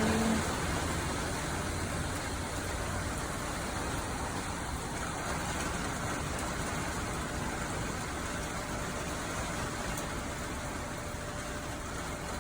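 Steady rain falling, an even hiss of drops. A low hum underneath fades out in the first few seconds.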